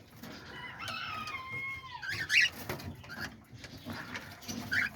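Cockatiel calling: one drawn-out call that falls slightly in pitch, followed about halfway through by a few short high chirps.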